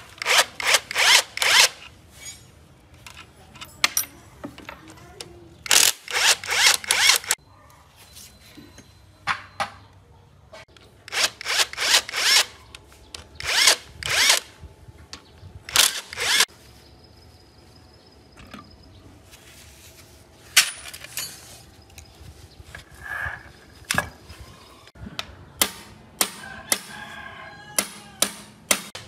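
Cordless impact driver with a socket on an extension spinning bolts out of an old truck engine during teardown, in clusters of short trigger bursts. Between the bursts come light metallic clinks of parts and tools being handled, and there are only a few shorter bursts near the end.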